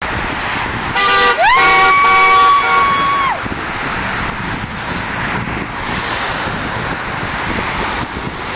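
Horn of a passing vehicle honking in support: a short beep about a second in, then a longer honk of about two seconds that rises into pitch and drops off at the end. Steady road noise runs underneath.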